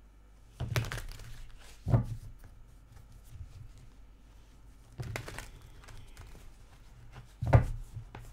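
A deck of tarot cards being shuffled by hand: short bursts of card rustling about half a second in, around five seconds in and near the end, with a dull thump about two seconds in and a louder one near the end.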